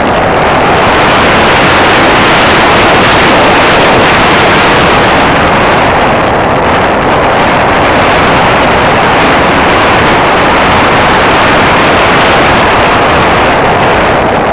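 Loud, steady rush of airflow and engine noise from a small aircraft in flight, picked up by a camera mounted on the plane, with wind buffeting the microphone.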